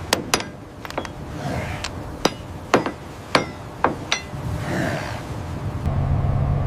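A series of sharp metallic knocks, about ten irregular strikes with a short ring after each. A low steady hum starts near the end.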